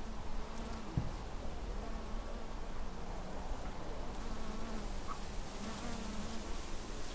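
Flying insect buzzing, a wavering hum that fades and returns as it moves about, with one soft knock about a second in.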